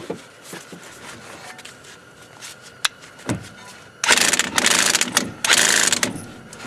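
Impact wrench hammering in two bursts of about a second each, about four seconds in, tightening a nut through a socket and long extension. A few light clicks and a knock come before the bursts.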